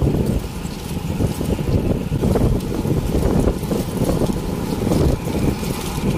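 Wind rumbling over the microphone while riding a bicycle at speed, a dense low rumble that rises and falls unevenly.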